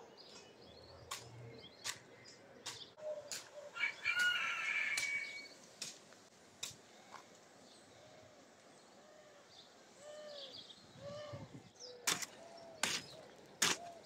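Chickens clucking in short repeated calls, with a longer, louder call about four seconds in, likely a rooster. A hoe blade chops into the soil in sharp knocks, three strongest near the end.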